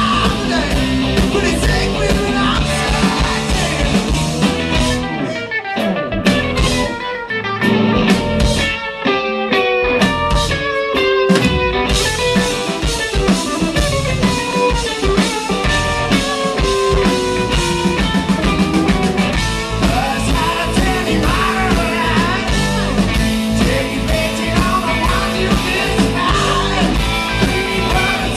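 Live blues-rock band playing loud: electric guitars, bass and a drum kit, with singing. From about five seconds in the band drops to a sparser break with a falling melodic line, and the full band with drums crashes back in about twelve seconds in.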